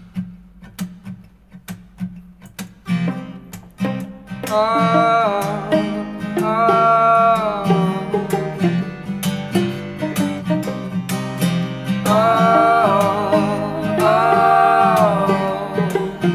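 Indie-folk band playing: an acoustic guitar strummed steadily over a bass line. From about four seconds in, a melody of long held notes that slide between pitches rises above it.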